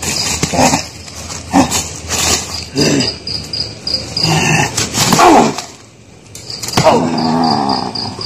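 A person growling and crying out hoarsely like an animal, in repeated bursts of about a second each, with crickets trilling in a steady pulsing chirp behind.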